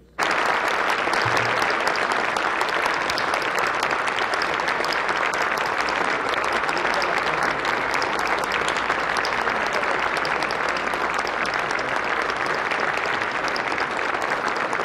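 Large assembly of legislators applauding steadily in a big chamber. The clapping cuts in abruptly just after the start.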